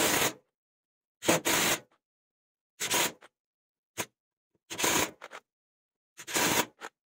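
Parkside Performance PDSSAP 20-Li B3 cordless impact driver running screws into a wooden beam one after another: six short bursts, about every second and a half.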